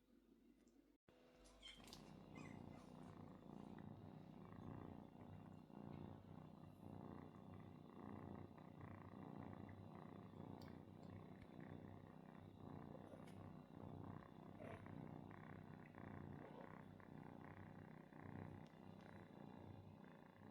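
Cat purring steadily, starting about two seconds in.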